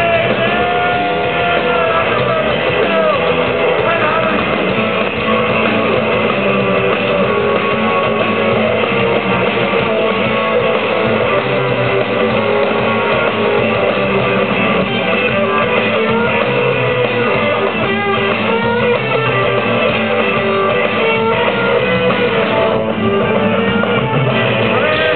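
Live rock band playing loudly, electric guitar to the fore.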